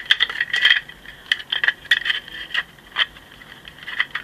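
Hard plastic toy vehicle parts clicking and clattering as they are handled and fitted together: a string of sharp, irregular taps.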